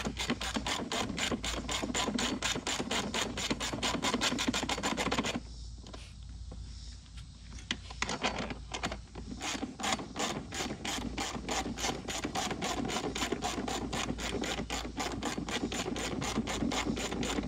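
Ratchet wrench clicking rapidly and evenly as a motorcycle subframe bolt is backed out. The clicking pauses about five seconds in and resumes a few seconds later.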